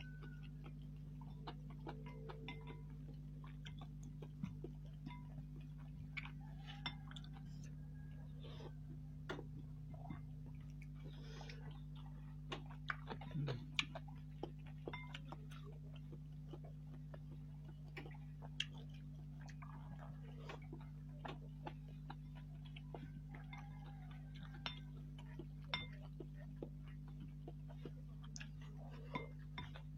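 Close-up eating sounds of a mukbang: chewing noodles, with irregular sharp clicks of utensils against the bowl, over a steady low hum.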